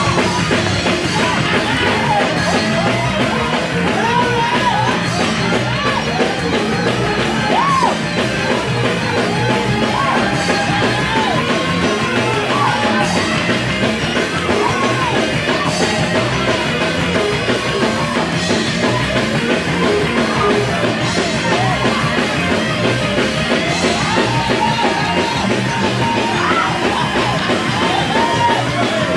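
Live church praise band playing loud, continuous music with drums, while voices yell and sing over it.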